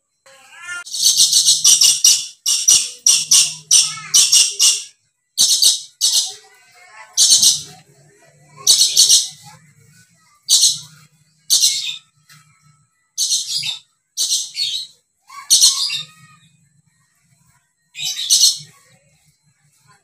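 Dusky lory shrieking: a fast run of harsh, high-pitched screeches over the first few seconds, then single screeches every second or two.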